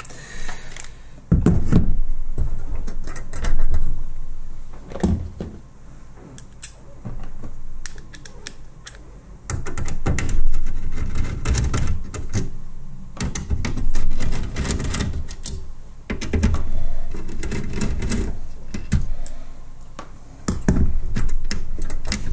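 Irregular clicks, knocks and rattles of a sheet-metal chassis frame and circuit boards being handled and unscrewed with a screwdriver on a workbench, with several louder thuds.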